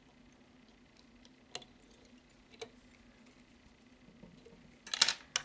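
Small clicks and taps of fly-tying tools handled at the vise during a whip finish: two faint ticks, then a quick cluster of sharper clicks near the end, over a steady low hum.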